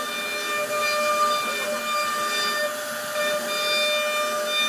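CNC router spindle whining at a steady pitch while its bit carves grooves into wood, over a continuous hiss of the cut.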